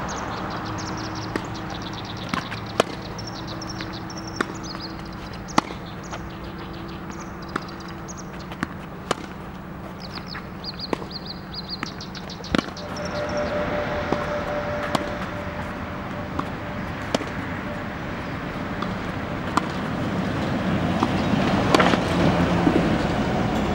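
Tennis balls struck by rackets and bouncing on an outdoor hard court: single sharp pops every second or two, over a steady low traffic hum.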